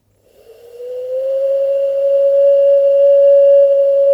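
A bird-call whistle blown through cupped hands: one long, steady note that starts about half a second in with a slight upward glide, surrounded by breathy air noise.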